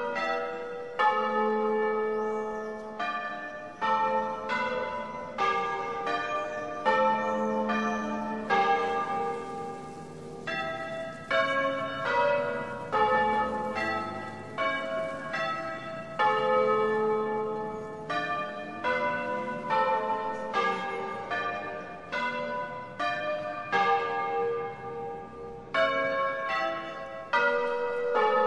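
Bronze church bells rung in the Bolognese manner: several bells of different pitch strike in turn, about one stroke a second, each ringing on into the next.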